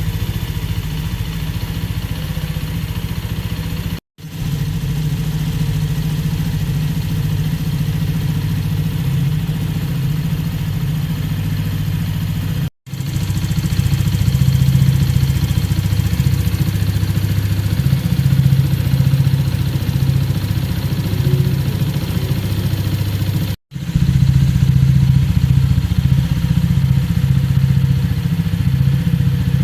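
Benelli Keeway SR 125 motorcycle's single-cylinder 125 cc engine idling steadily. The sound is in several pieces, with three brief drop-outs about 4, 13 and 24 seconds in, and is a little louder from the second break on.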